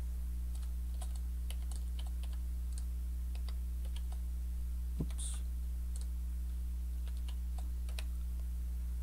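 Typing on a computer keyboard: scattered key clicks, with one heavier knock about five seconds in, over a steady low hum.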